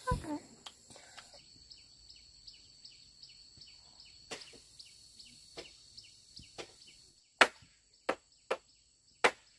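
A thump right at the start, then scattered faint knocks and four loud, sharp knocks in the last two seconds, like chopping or striking. A faint high chirp repeats about two to three times a second underneath.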